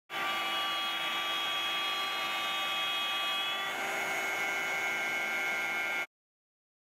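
CNC router spindle running and cutting through wood: a steady high whine with rushing noise, its tones shifting slightly about three and a half seconds in. It cuts off suddenly.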